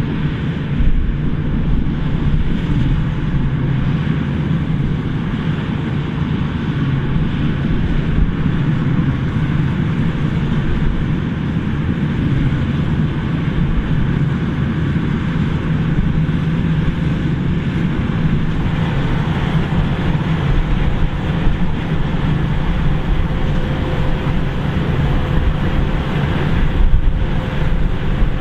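Claas Lexion 770 combine harvester running steadily while harvesting: a low, even engine drone with a faint steady whine on top.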